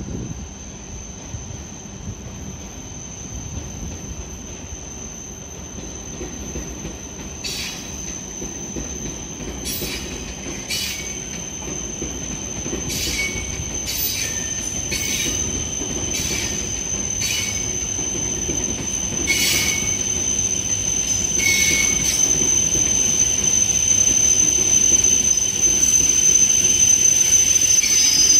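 E7 series Shinkansen train running into the platform and slowing to a stop: a steady high-pitched squeal grows louder as it approaches. Sharp clicks come from the wheels passing over the track, and a low rumble runs underneath.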